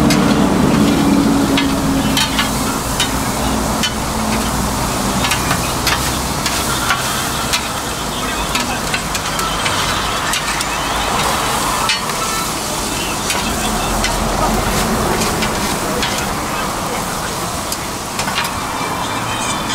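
Pork tripe and vegetables sizzling steadily on a hot flat griddle, with many short clicks and scrapes of metal spatulas against the griddle as the food is stirred and tossed.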